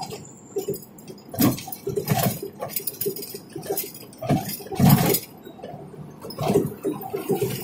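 Irregular knocks and clinking rattles inside a moving car's cabin as it rides over cracked, patched concrete road, a few sharp jolts a second or so apart.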